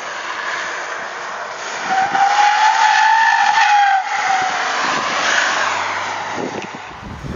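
Twin-turbo diesel Saab estate spinning its tyres on a hard launch: a loud, steady squeal that rises slightly in pitch for about two seconds and stops abruptly. After that come the car's engine and tyre noise as it drives away.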